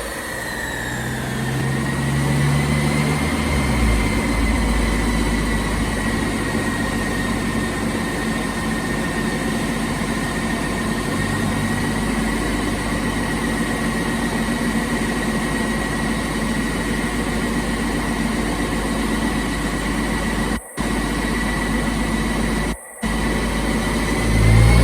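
BMW E46 M3's S54 inline-six on a chassis dyno: the revs fall away over the first few seconds, then it idles steadily under a constant high whine, with the revs starting to climb again right at the end. The sound cuts out briefly twice near the end.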